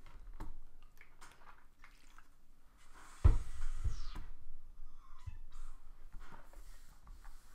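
A person drinking from a bottle: faint sips, swallows and small clicks. There is one louder thump about three seconds in, as the bottle is put down.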